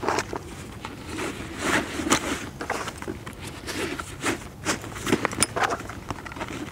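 Canvas haversack and its pouches rustling and scraping as kit is packed into it by hand, with irregular soft knocks and shuffles.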